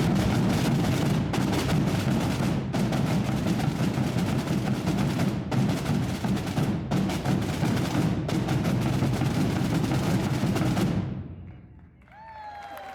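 Massed drums and bass drums of a Holy Week tamborada playing together in a dense, continuous roll, stopping all at once about eleven seconds in and leaving a short echo. Near the end a single voice calls out.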